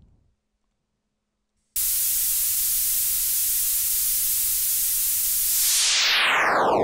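Synthesized white noise from a software synthesizer, cutting in abruptly about two seconds in and holding steady and loud. Near the end it turns into a sweeping, phaser-like whoosh that falls in pitch.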